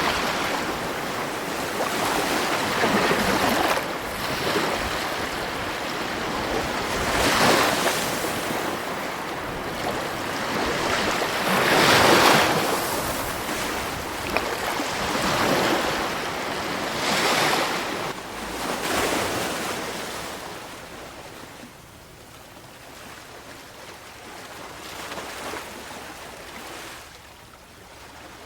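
Sea waves washing onto the shore, a steady rush that swells and falls every few seconds, with the biggest surge about twelve seconds in. The surf turns quieter and gentler for the last third.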